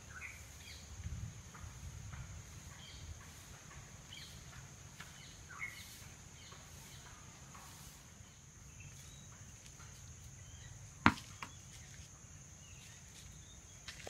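Rural outdoor ambience: birds chirping in short scattered calls over a steady high-pitched insect drone, with one sharp click about eleven seconds in.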